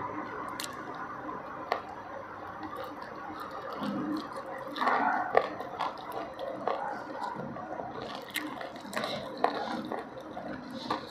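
Close-up wet chewing and lip smacking of a person eating, with many small clicks and a louder smack about five seconds in.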